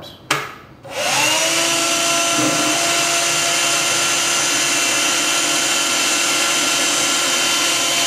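Black & Decker 7.2-volt wet/dry Dustbuster handheld vacuum switched on, its small motor whining up to speed about a second in and then running steadily with a rush of air as the nozzle sucks water from a sink.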